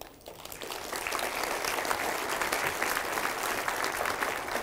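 A large audience applauding: many hands clapping together, building up over the first second and then holding steady.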